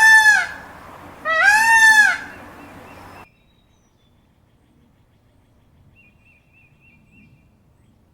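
A peacock calls loudly twice, with a piercing, arching wail about a second long each time. The sound then cuts off abruptly, leaving a very quiet stretch with faint high chirping.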